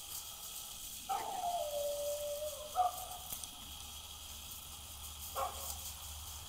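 A dog calling: one long pitched cry about a second in that drops slightly in pitch and holds for about a second and a half, then a short call, and another short call near the end.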